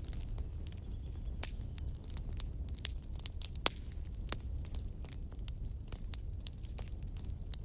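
Light, irregular clicks and taps as puffed makhana (fox nuts) and cashews are dropped by hand into a small stainless-steel grinder jar, over a low steady hum.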